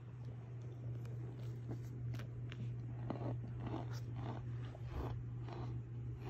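Compressed cornstarch crunching and squeaking in a series of short crunches, sparse at first and coming about twice a second in the second half, over a steady low hum.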